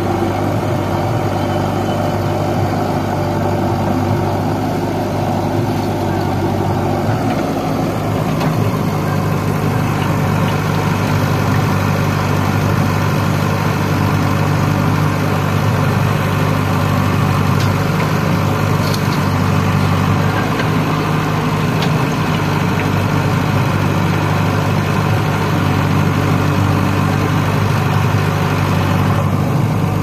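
Heavy diesel engine of the earthmoving machinery running steadily at close range, with a change in its tone about eight seconds in.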